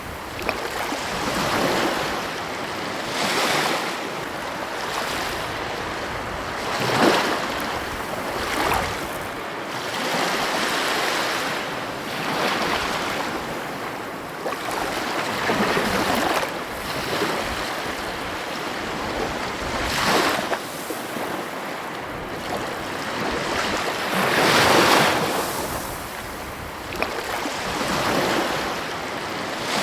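Ocean waves breaking and washing onto a beach, a steady surf noise that swells every few seconds as each wave breaks.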